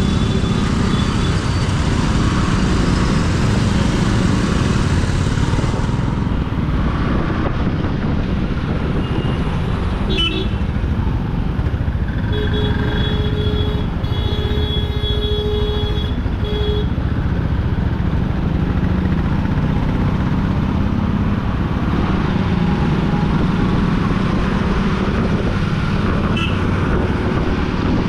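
Steady engine and road noise of a Honda commuter motorcycle riding slowly in heavy city traffic. A vehicle horn sounds briefly about ten seconds in, then a horn is held, with short breaks, for about four seconds from roughly twelve seconds in.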